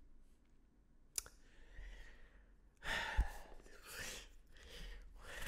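A man sighing and breathing out heavily, with a single click about a second in.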